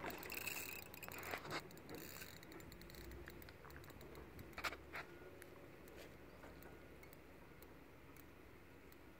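Quiet lakeside ambience. Water lapping dies away over the first couple of seconds as a released sturgeon swims off, then a few faint clicks.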